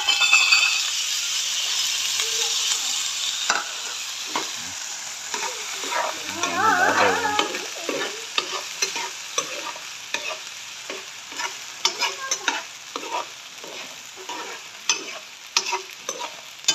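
Fish sauce sizzling in a hot frying pan of stir-fried insects, loud at first and then dying down over the first few seconds, with repeated clicks and scrapes from stirring. A brief wavering pitched sound comes about six seconds in.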